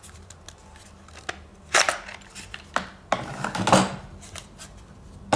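Hard plastic clicks and clatter of a Metabo 18 V 2.0 Ah battery pack being unlatched and slid off a cordless drill and handled in a plastic carry case: a few sharp knocks with short scraping rattles about two seconds in and again between three and four seconds.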